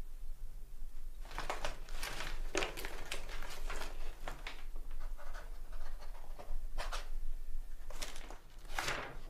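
Sheets of paper rustling and crackling in several bursts as the pages of a contract are handled and turned.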